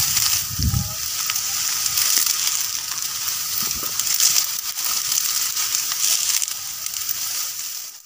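Tall dry grass and reed stalks rustling and crackling as someone forces a way through them, the stalks brushing close against the microphone.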